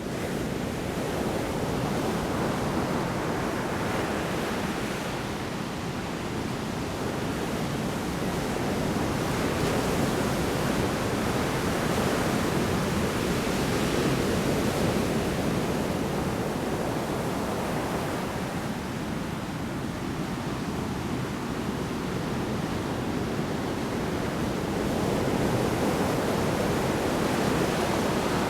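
Large storm waves breaking on the shore, a continuous roar of surf that swells and eases slowly every several seconds.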